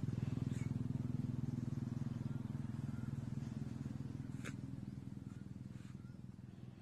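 A vehicle engine runs with a steady low hum that fades gradually, as if moving away. A few faint light clicks come through about halfway and near the end.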